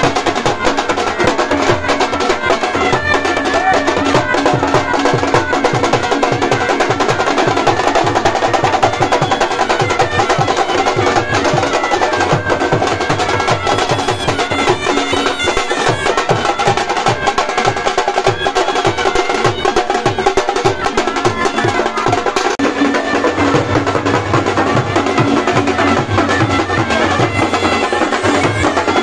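Loud festival procession music: fast, continuous drumming with a melody carried over the drums.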